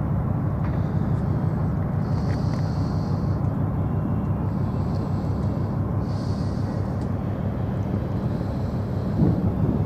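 Steady low rumble of a motor vehicle engine running, with short spells of higher hiss coming and going every second or two.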